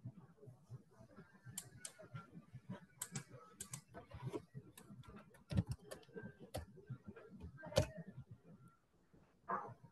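Faint, irregular clicking of typing on a computer keyboard, with a few louder keystrokes, picked up by an open microphone on a video call.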